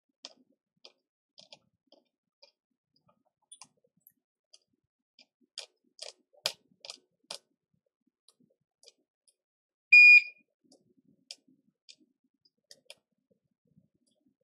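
Light, scattered clicks and taps of small tools during microsoldering work on a phone logic board, with a quick run of louder clicks about six to seven seconds in. About ten seconds in, one short, loud electronic beep.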